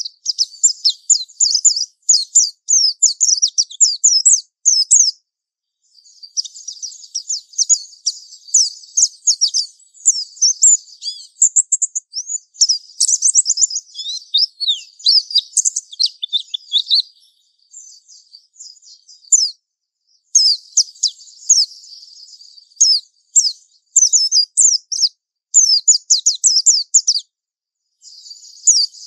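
Japanese white-eye (pleci) singing its long, rapid, high twittering 'ngalas' song in runs of several seconds, with brief breaks about five seconds in, in the middle, and near the end.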